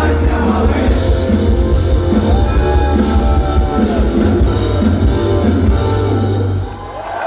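Live punk rock band playing the final bars of a song, with drum kit, electric guitars and bass. The band stops about 6.7 seconds in.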